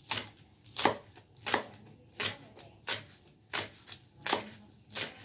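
Kitchen knife slicing spring onions on a wooden cutting board, one stroke about every two-thirds of a second. Each cut ends in a short knock of the blade on the board, about eight in all.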